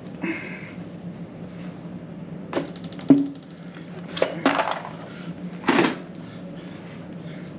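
Knocks and metallic clinks from a Sovol SV06 3D printer as it is tipped back upright and set down on a wooden tabletop. A sharp knock comes about three seconds in, followed by a few more clattering knocks.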